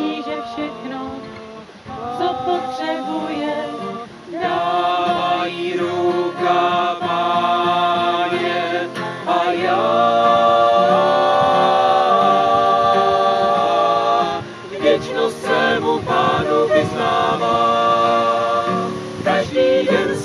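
A small mixed group of women's and men's voices singing a Czech worship song together, accompanied by a strummed acoustic guitar.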